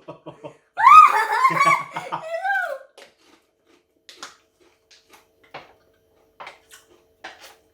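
A loud, wavering voice-like howl lasts about two seconds near the start. It is followed by sparse, irregular crunches of tortilla chips being bitten and chewed.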